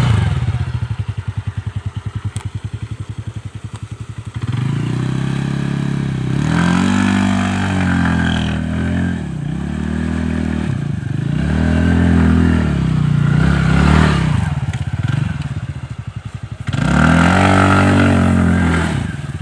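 TVS NTorq 125 scooter's single-cylinder engine idling for the first few seconds, then revved in about five bursts, the pitch climbing and falling with each, as it is ridden hard on loose sand.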